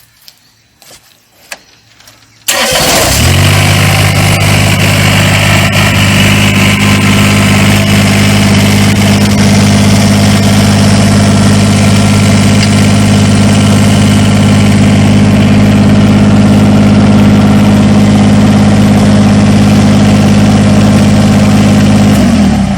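Kubota BX compact tractor's three-cylinder diesel engine starting up about two and a half seconds in, then running loud at a steady speed, and shutting off just before the end.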